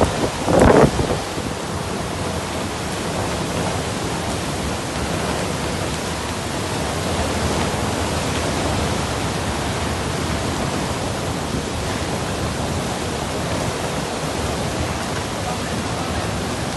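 Heavy rain and strong wind in a storm, a steady dense rushing noise. Under a second in, a brief loud burst rises above it.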